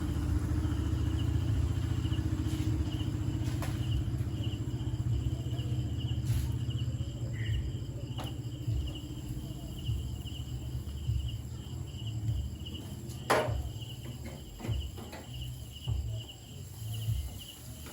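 Crickets chirping steadily in a fast, even pulse over a low rumble that fades and turns uneven. A few short clicks and knocks, the sharpest about 13 seconds in.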